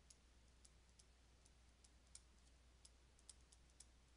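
Faint, irregular light clicks of a stylus tip tapping on a tablet screen during handwriting, about three a second, over a low steady hum.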